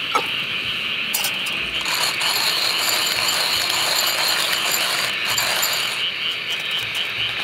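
Night chorus of grass insects trilling steadily, with a higher, buzzing insect call that joins about two seconds in and stops about six seconds in.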